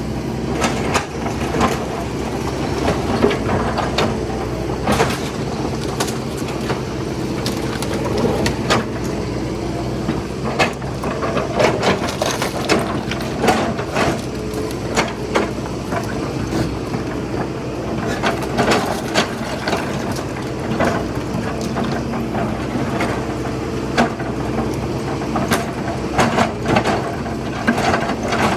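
Hitachi excavator's diesel engine running steadily under load, with frequent sharp cracks and knocks throughout as it breaks up a house and the debris falls.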